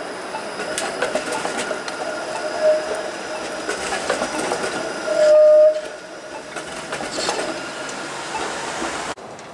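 Flexity Outlook low-floor streetcar rolling through curved track, its wheels clicking over the track joints. The wheels give short, steady high-pitched squeals on the curve: a brief one about two and a half seconds in and a louder one about five seconds in, which is the loudest sound.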